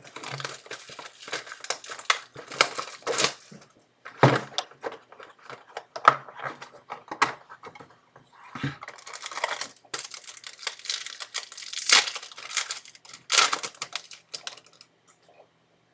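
Plastic wrapping on trading card packs crinkling and tearing as it is opened by hand, in irregular bursts with brief pauses.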